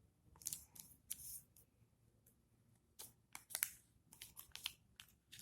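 Origami paper rustling and crinkling in short, faint bursts as a folded model is bent in half and pressed together.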